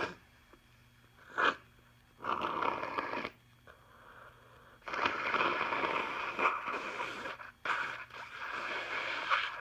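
A woman with a congested nose blowing her nose hard: a short sharp snort about a second and a half in, then one short blow and two long blows, each lasting a few seconds.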